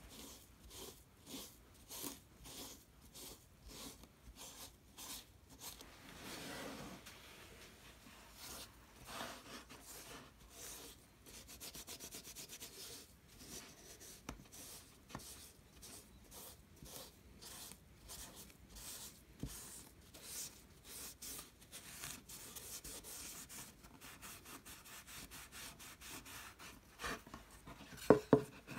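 Hand sanding a small wooden plaque with a folded sheet of sandpaper: short rasping strokes, about two a second and quicker in places. A couple of sharp knocks near the end.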